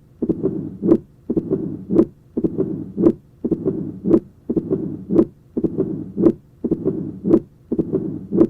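Heart sounds of mitral stenosis heard at the apex, beating about once a second. Each cycle has a loud first heart sound, an opening snap, and a low-pitched mid-diastolic rumbling murmur that swells just before the next first heart sound (pre-systolic accentuation).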